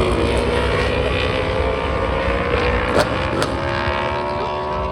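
Racing motorcycle engines running at speed on the track, their pitch drifting slowly as they pass, with two sharp pops about three seconds in.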